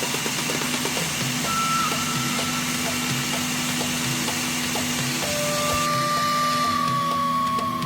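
Flashforge AD5X 3D printer running: a steady fan hiss and hum, with the stepper motors' thin whines starting, stopping and gliding slowly in pitch as the print head moves.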